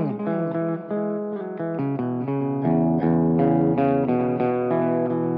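Electric guitar, a 1976 Gibson ES-335 semi-hollow body, playing ringing notes and chords through a Strymon Timeline delay pedal, the notes trailed by echoes. A falling pitch glide comes right at the start.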